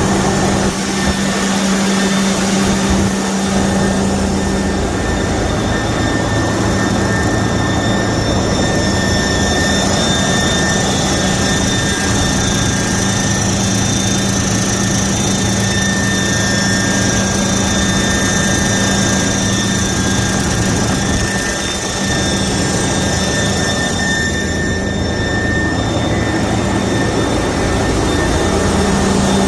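Detroit DD15 inline-six diesel in a Freightliner Cascadia running at raised revs, with a high steady whine from the turbocharger over the engine's hum. The whine fades briefly about four-fifths of the way through, then comes back weaker. It is the sign of a damaged turbine wheel inside the turbo, a noise that shows only at high RPM.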